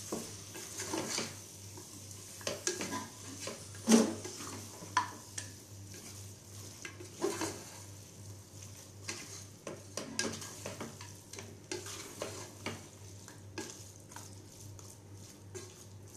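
Wooden spatula stirring mutton bones through sizzling masala in a pressure cooker: irregular scrapes and knocks against the pot over a steady frying sizzle, the loudest knock about four seconds in. A low steady hum runs underneath.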